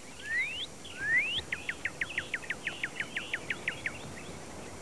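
A songbird singing: two rising slurred whistles, then a fast run of short falling notes, about six a second.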